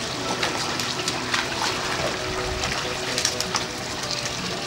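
Water splashing and trickling in a penguin pool, with many short splashes as Humboldt penguins swim.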